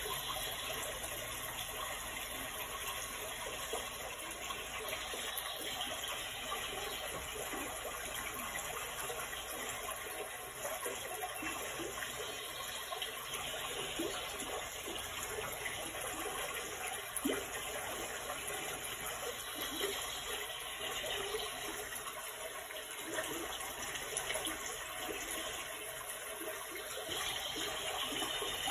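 Steady rushing sound of running water, with small irregular ticks and splashes.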